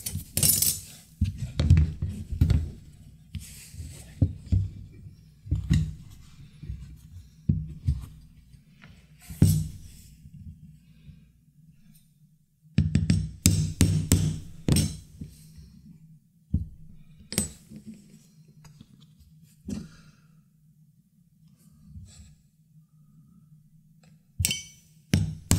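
Background music with a steady low bass line, over which come leatherworking sounds: scattered taps and scrapes of leather being cut with a utility knife along a metal ruler, then clusters of quick sharp knocks from a mallet driving a pricking iron through leather, about halfway through and again near the end.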